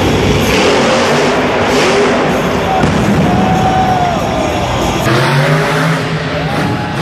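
Monster truck's supercharged V8 engine running loud at high revs, its pitch rising and falling with the throttle. About five seconds in, the sound changes abruptly to a clearer engine note with gliding revs.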